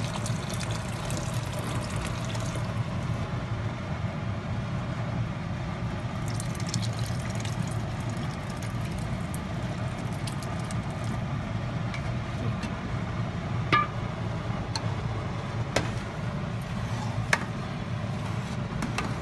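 Reduced milk being poured from a bowl into a steel pot of cooked semolina halwa, over a steady low hum. Three sharp metallic clinks near the end.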